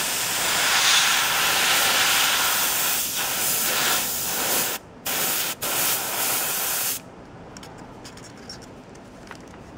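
Airbrush spraying paint: a steady hiss of air, broken twice by short pauses around five seconds in, then cut off about seven seconds in.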